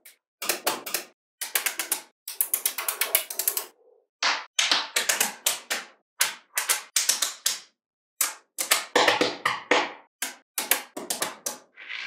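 Magnetic balls clicking and snapping together in quick rattling bursts, one after another, with brief silences between.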